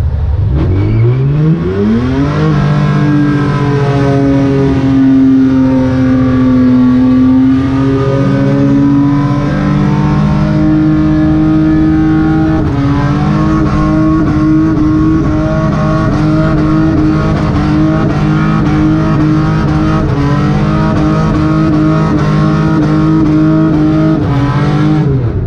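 Burnout car's engine revving up hard in the first couple of seconds and then held at high revs while the rear tyres spin and smoke. The note wavers at first, then runs on with a steady pulsing from about halfway, and falls away near the end.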